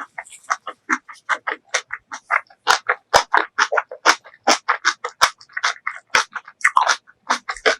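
Close-miked chewing, a rapid run of short, wet mouth clicks and smacks at about six a second.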